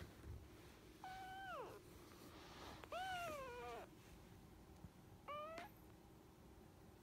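Kitten meowing three times in a high voice: a call that holds and then falls about a second in, a longer call that rises and falls around three seconds in, and a short rising call later on.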